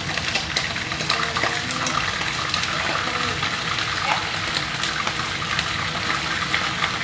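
Fish pieces frying in hot oil in a stainless steel pan under a mesh splatter screen: a steady sizzle with many small crackling pops.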